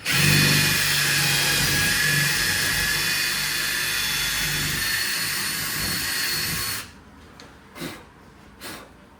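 Power drill running steadily for about seven seconds, boring a window-frame hole deeper for a lock bolt, then stopping suddenly. Two short bursts follow about a second apart.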